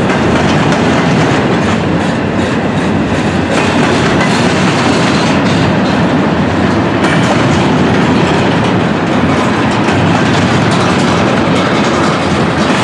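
Freight train rolling past close by: steel wheels clickety-clacking on the rails over a steady rumble as a string of empty gondolas and double-stack container well cars goes by.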